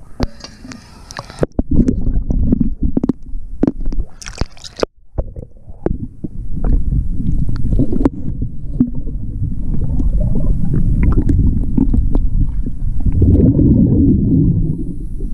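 Water sloshing and gurgling around a GoPro in its underwater housing as a scuba diver moves at and just below the surface, with scattered sharp knocks and brief splashes in the first few seconds. It then settles into a steady low underwater rumble, and near the end a louder gush of exhaled regulator bubbles.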